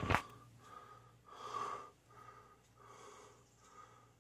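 A person breathing heavily and wheezily close to the microphone, about one breath every 0.7 seconds, over a faint steady low hum. A knock sounds right at the start.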